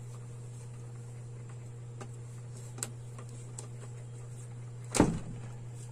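Pliers working electrical wire at a plastic junction box: a few faint clicks, then one sharp clack about five seconds in, over a steady low hum.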